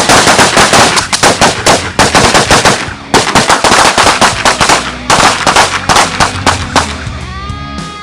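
A line of shooters firing rapid, overlapping shots from rifles and pistols, a dense, irregular volley of gunfire that thins out and stops about seven seconds in.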